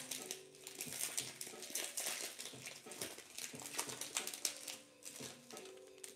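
Foil trading-card pack crinkling as it is torn open and the cards are slid out, a run of quick crackles.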